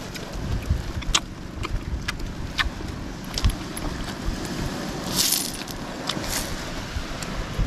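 Light metallic clinks now and then, like spoons and forks against plates during a meal, over a steady low rumble of wind on the microphone, with a short hiss about five seconds in.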